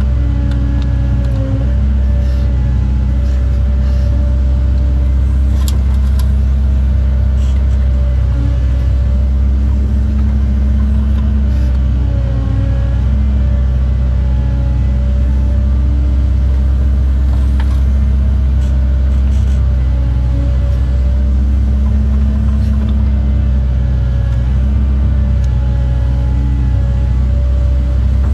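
Cat 309 excavator's diesel engine running steadily under working load, heard from inside the cab, with a whine that wavers slightly in pitch as the machine digs and swings.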